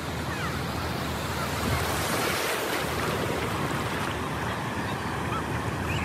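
Ocean surf washing over shallow water, a steady rush, with wind buffeting the microphone.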